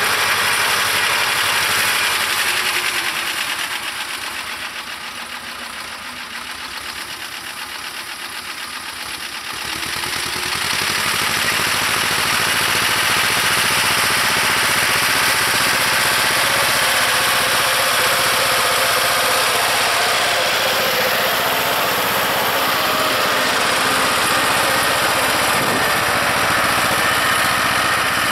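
Vladimirets T-25 tractor's two-cylinder air-cooled diesel engine running under load as it pulls a plough and harrow through the soil. The sound fades for several seconds about three seconds in, then comes back louder and stays steady.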